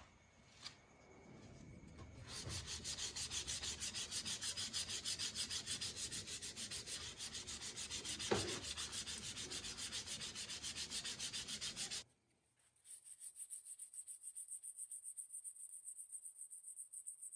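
Hand-sanding a steel bar clamped in a vise, with quick, even back-and-forth scraping strokes. The strokes stop about twelve seconds in, then start again fainter and hissier.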